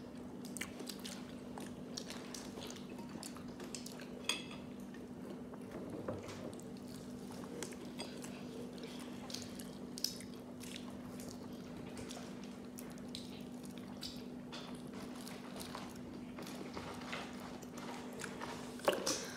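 Mouth sounds of a person chewing fried chicken, with small crunches and clicks, over a steady low hum. Near the end comes a louder sip from a cup.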